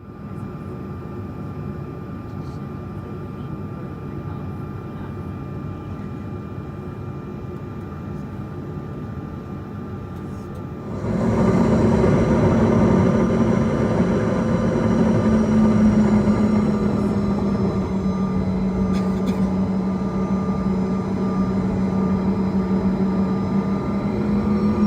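Inside the cabin of a CRJ-200 regional jet, its rear-mounted GE CF34 turbofan engines run with a steady hum. About eleven seconds in, they spool up sharply into a much louder, steady drone with a low tone and high whines, as power is set for takeoff.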